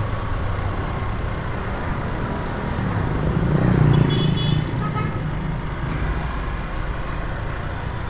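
Motorcycle engine running on the move, with steady road and wind noise. A louder low rumble rises and fades about three to four seconds in, like a heavier vehicle passing.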